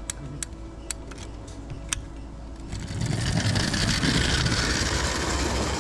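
Model train running on the raised track: a few sharp clicks, then a louder steady rumble of running wheels from about three seconds in.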